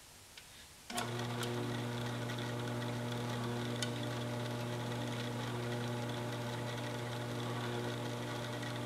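An electric motor switches on abruptly about a second in, then hums steadily at a constant low pitch with higher overtones and scattered light ticks.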